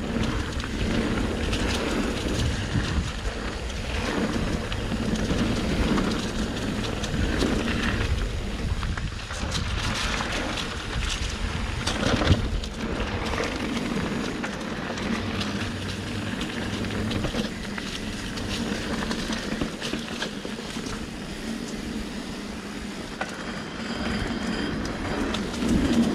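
Riding noise from an electric mountain bike on a trail: tyres rolling over dirt and the bike rattling over bumps, with a sharp knock about 12 seconds in.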